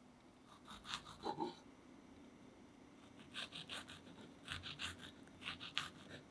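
Small kitchen knife cutting the green tops off whole strawberries on a wooden cutting board. It makes short, crisp cuts that come in several quick clusters over a faint steady room hum.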